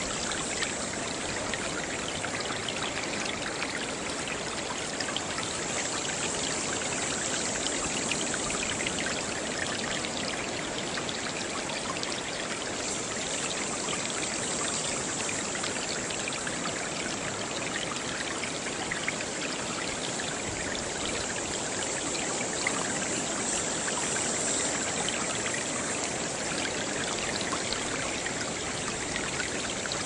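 Small waves lapping along the water's edge: a steady, even wash of water noise with no bird calls standing out.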